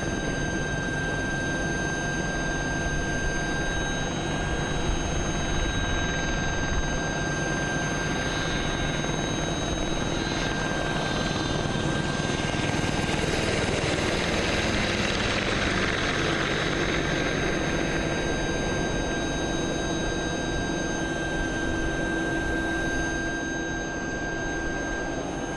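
AH-64 Apache attack helicopter flying past with a steady rotor and turbine noise. The noise swells a little in the middle and eases slightly near the end.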